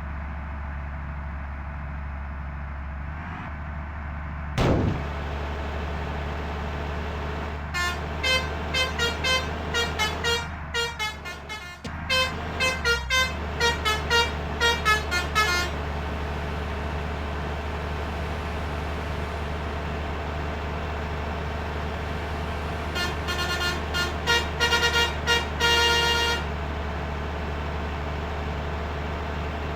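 Bus 'telolet' multi-tone horn of the Basuri type playing quick runs of short beeping notes that step up and down in pitch like a little tune. One run comes about a quarter of the way in and another past two-thirds, over a steady low engine hum. A brief sharp sweep sounds about four seconds in.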